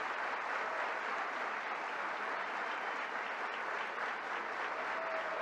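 A large audience applauding, a dense and steady clapping.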